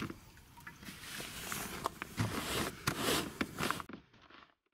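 Handling noises from the deflated fabric hull of a Sevylor Adventure Plus inflatable kayak being folded on a wooden bench: irregular rustling with several sharp knocks. The sound cuts off abruptly about four seconds in.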